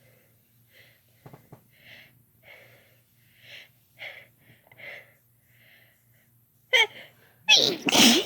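A woman's quick breathy gasps, about two a second, building up to a sneeze. The loud sneeze bursts out near the end.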